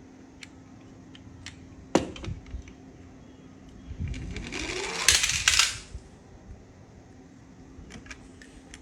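Toy cars being handled on a hard surface: a few sharp plastic clicks and a knock about two seconds in. About four seconds in comes a whirring that rises in pitch for about two seconds, a toy car's wheels or motor spinning up, followed by a few small clicks near the end.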